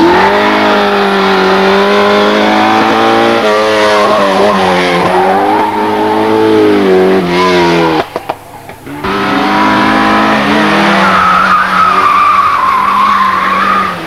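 Rally car engines revving hard on a climb, the pitch rising and falling as the drivers shift and lift for bends. The sound drops out briefly about eight seconds in, then a second car is heard, with a tyre squeal for the last few seconds.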